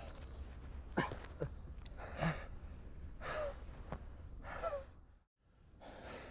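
Men gasping and panting heavily for breath from exhaustion, one loud ragged breath about every second. The sound cuts out briefly near the end.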